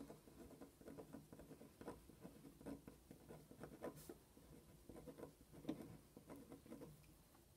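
Faint scratching and tapping of a felt-tip pen writing words on lined paper, in many short irregular strokes that die away near the end.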